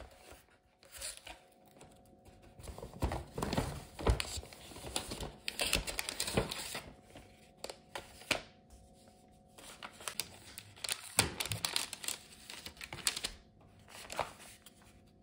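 A paper shopping bag and thin gift-wrapping paper rustling and crinkling as a small wrapped box is taken out and unwrapped by hand. The sound comes in short irregular bursts with brief pauses between them.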